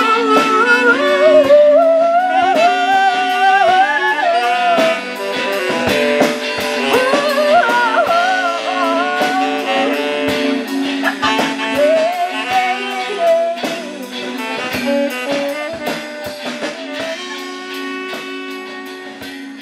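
A live band playing: a saxophone melody over electric guitar and a steady drum beat. The music fades out near the end.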